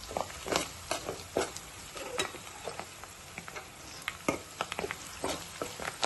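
Sliced onions frying in oil in a pan with a steady sizzle, while a spoon stirs them and scrapes and clicks irregularly against the pan.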